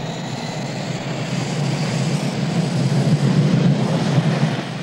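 Jet engines of a military reconnaissance aircraft running, a loud steady rush with a thin high whine, growing louder toward the end.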